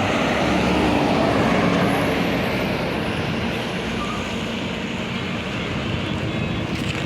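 Large bus driving past on the road: engine and tyre roar that swells about a second in and then slowly fades.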